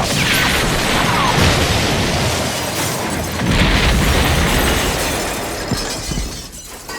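Cartoon explosion sound effect: falling whistles at the start, then a long, loud crashing blast that swells again about halfway and fades near the end, with music underneath.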